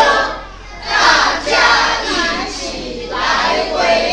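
A group of voices calling out together in unison, in short phrases of about a second with brief breaks between them, like a rehearsed slogan chant.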